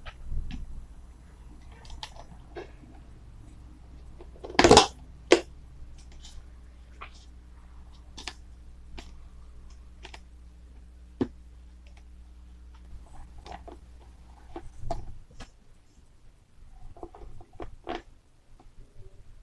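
Hands handling a plastic tub and its snap-on plastic lid while electrodes and multimeter probes are fitted: a scattered string of small clicks and knocks, the loudest a sharp knock about five seconds in.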